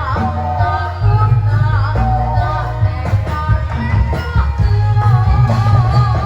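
Loud Javanese traditional music for a barongan/jaranan performance: a wavering melody line over heavy, steady low drumming and bass.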